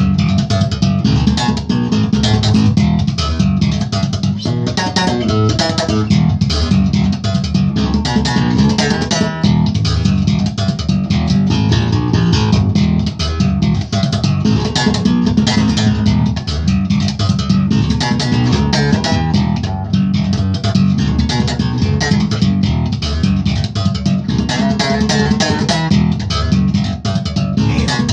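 Electric bass guitar played continuously in a fast funk style, with a dense run of plucked notes, each with a sharp attack.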